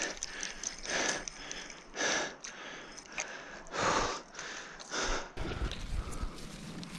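A person's heavy breaths in short rushes about once a second. About five seconds in, a low rumbling slosh of lake water close to the microphone takes over.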